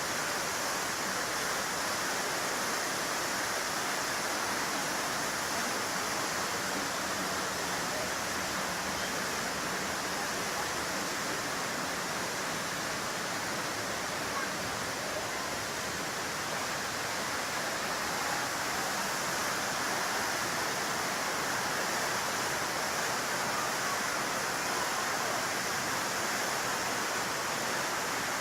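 Waterfall: water falling and rushing with a steady, unbroken noise.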